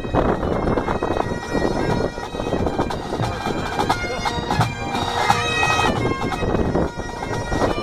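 Pipe band playing: Great Highland bagpipes sounding their steady drones under the chanter melody, with snare drums and a bass drum beating along.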